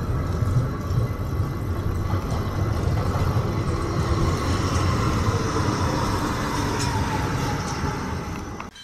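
Geneva TPG tram pulling into a stop on wet streets: a steady low rumble with hiss, and a whine that slowly falls in pitch as the tram slows. The sound cuts off abruptly just before the end.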